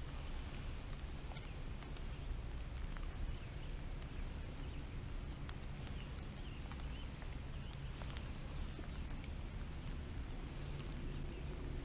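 Quiet outdoor lake ambience: a steady low rumble with faint bird chirps now and then and a few small ticks.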